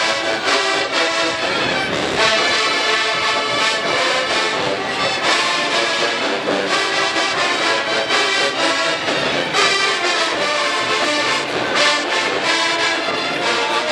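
A large marching band's brass section playing a loud, steady tune, led by sousaphones and trumpets.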